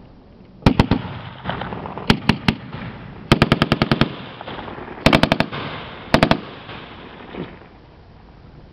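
Machine guns firing short bursts of automatic fire, each shot echoing. A few rounds come about a second in, then three single shots, a longer rapid burst of about ten rounds, and two shorter bursts.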